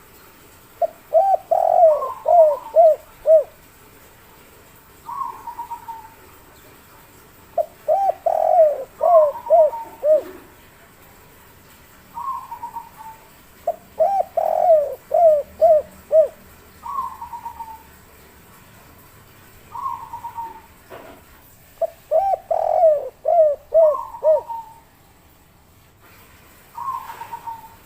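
Spotted dove (derkuku) cooing its 'kuk 3' song. Four loud phrases of about five quick coos each come every six to seven seconds, with shorter, higher, falling notes in between.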